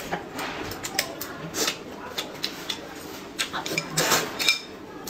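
A person eating noodle soup close to the microphone: slurping noodles and broth, with chopsticks clicking against a ceramic bowl.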